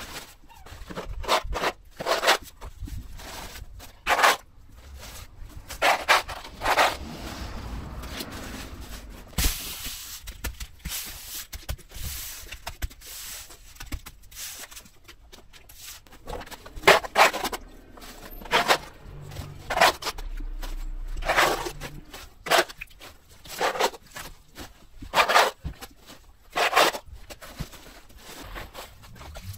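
Repeated scraping strokes of a hand tool worked over a paved driveway, brisk and irregular, about one a second with short gaps, and one longer drawn-out scrape about ten seconds in.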